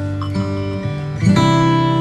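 Background music played on acoustic guitar, strummed chords with a new chord struck about a second in.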